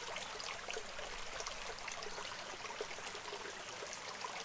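Small, low-running creek trickling steadily over rocks, a soft constant rush of water with faint scattered ticks.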